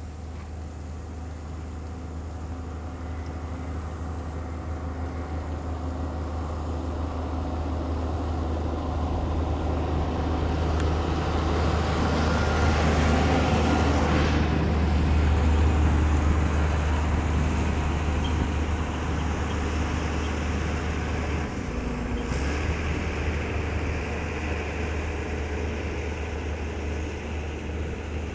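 Steady low engine rumble, as of a vehicle running, under a hiss that swells toward the middle and then eases off. The rumble briefly drops out and changes about three-quarters of the way through.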